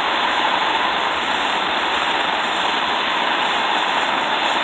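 Handheld mini torch burning with a steady hiss, its flame heating a brake-line fitting to red heat.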